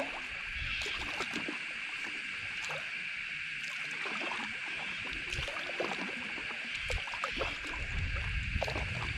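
Water splashing and trickling around a paddleboard as it is paddled along, in irregular small splashes. A steady high-pitched drone runs underneath, and low rumbles come in near the end.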